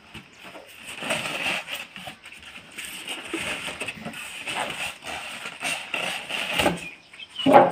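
Plastic wrap and polystyrene foam packing rustling, crackling and squeaking as a subwoofer is worked out of its carton, with a louder bump near the end.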